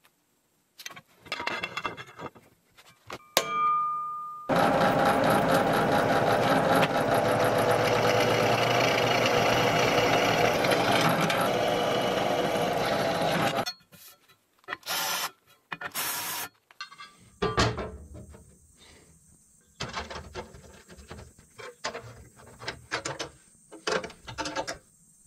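Drill press drilling holes through a metal cover plate, running steadily for about nine seconds. Before and after it, scattered clicks and knocks of hand-tool work on the plate.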